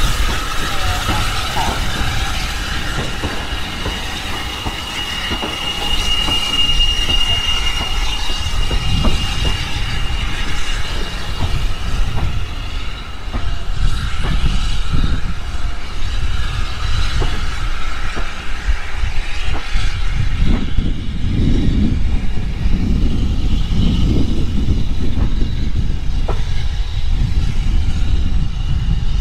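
Vintage wooden-bodied railway carriages rolling past on the track with a steady rumble and wheels clicking over the rail joints. A thin high wheel squeal rings out about six seconds in, and the sound grows duller as the train draws away.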